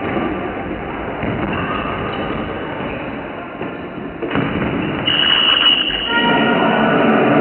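Indoor sports hall din during a floorball game: players' movement and stick and ball knocks in a reverberant hall. About five seconds in, a short high whistle blast is heard, then voices of players and spectators grow louder.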